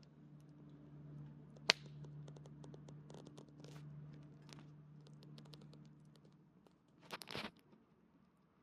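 Campfire crackling with scattered small pops, one sharp pop about two seconds in and a short louder burst of noise near the end. A low steady hum runs underneath and stops just before the burst.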